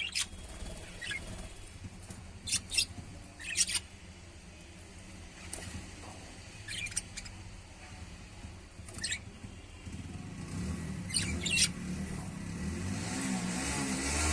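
Lovebirds giving short, sharp chirps, scattered through the stretch and some in quick pairs. In the last few seconds a vehicle's low engine rumble grows louder and passes.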